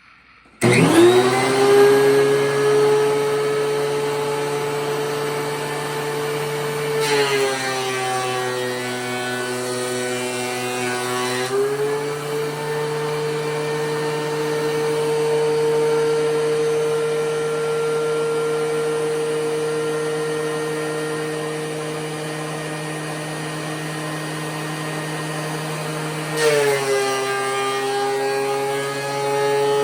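DeWalt DW735 thickness planer switched on about half a second in, its motor spinning up to a steady high whine. Twice, for about four seconds from around seven seconds in and again near the end, the pitch drops and a rougher noise joins as the motor takes load: a wooden cutting board being fed through the cutterhead and planed.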